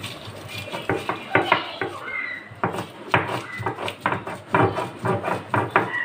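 A hand stone pounding and grinding whole chillies, garlic cloves and cumin on a stone sil (grinding slab): a run of irregular knocks of stone on stone with crushing scrapes between them.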